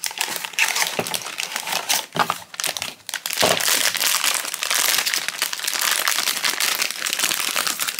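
A cardboard blind box rustled and opened by hand, then the foil bag inside torn open and crinkled. From about three and a half seconds in, the crinkling is dense and continuous.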